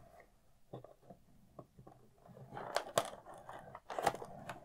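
Cardboard action-figure box being handled and its flap worked open: faint at first with a few small ticks, then soft scraping and crinkling with several sharp clicks from about halfway.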